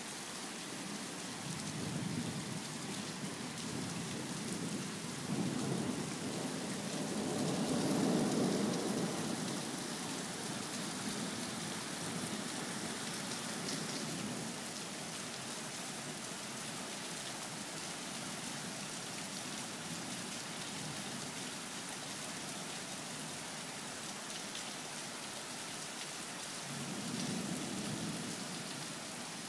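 Thunderstorm: steady rain falling, with thunder rumbling in several low swells, the loudest and longest about a quarter of the way in and a shorter one near the end.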